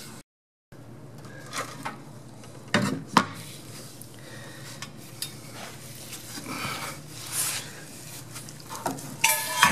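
Scattered metallic clinks and knocks from steel parts and tools being handled, starting after a brief gap of silence. Near the end comes a louder burst of ringing metal clattering.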